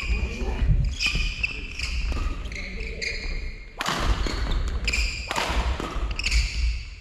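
Badminton doubles rally on a wooden gym floor: sports shoes squeaking sharply again and again and feet thudding as the players move, with racket strokes on the shuttlecock.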